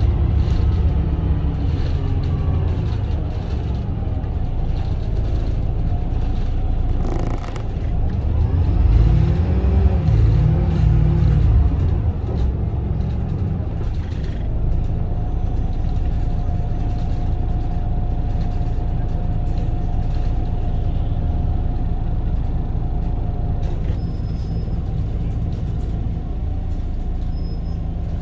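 Moving vehicle's steady low rumble, swelling for a few seconds about a third of the way in. A steady whine is held for several seconds in the second half.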